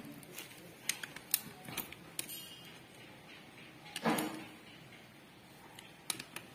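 Scattered metallic clicks and clinks of a socket wrench on a long extension bar working bolts inside a Maruti Gypsy engine's crankcase, with one louder knock about four seconds in.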